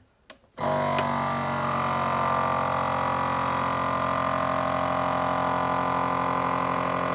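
Electric vacuum sealer's pump switching on about half a second in and running with a steady, even hum as it draws the air out of a mason jar through a jar-sealer lid attachment.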